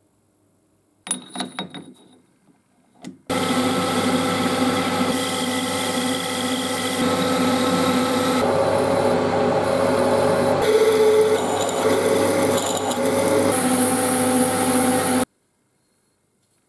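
A few light metallic clinks, then a metal lathe running and turning a steel washer blank: a steady machine whine over the noise of the cut, shifting in tone a few times before cutting off abruptly.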